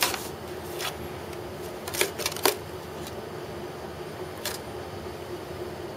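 Light paper taps and rustles as a calico cat bats at a paper ornament hanging on a string beside a paper bag: a sharp tap at the start, a quick cluster around two seconds in, and one more a little after four seconds. A faint steady hum runs underneath.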